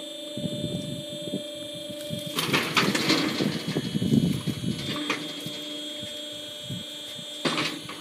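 Steady electric hum from the mobile band sawmill's motor-driven log-handling gear. From about two and a half to five seconds in comes a stretch of rumbling, clattering noise as the log is lifted onto the saw bed. A short knock follows near the end.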